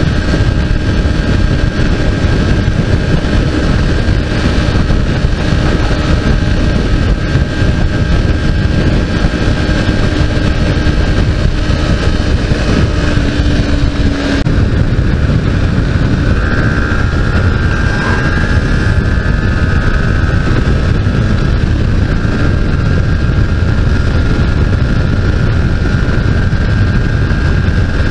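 Modenas Ninja 250's parallel-twin engine running steadily at highway cruising speed, mixed with wind noise on the microphone. The engine note changes about halfway through.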